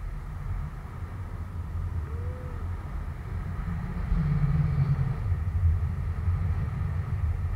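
Wind buffeting the microphone of a camera held out in the airflow beneath a parasail: a constant, uneven low rumble.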